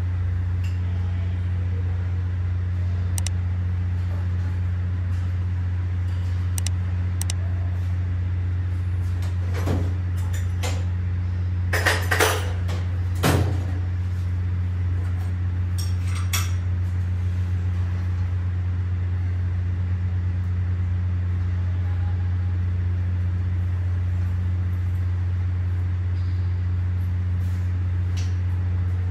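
Metal clanks and knocks from a rotating engine stand and a bare Toyota 2TR-FE engine block as the block is turned over and set deck-up, a cluster of them about midway. A steady low hum runs underneath.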